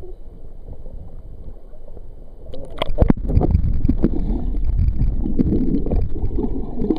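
Hot tub water churning and bubbling, at first heard above the surface as a low rumble; about two and a half seconds in there are a few sharp knocks and splashes as the recording goes underwater, and the churning turns into a loud, muffled underwater rumble with bubbling.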